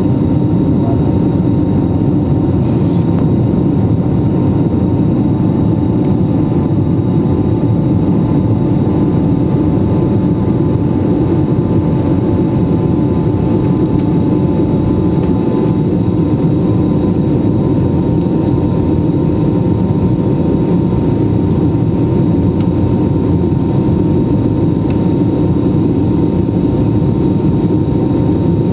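Airliner cabin noise during the climb after takeoff: a steady roar from the turbofan jet engines and the airflow over the fuselage, with thin steady whines on top.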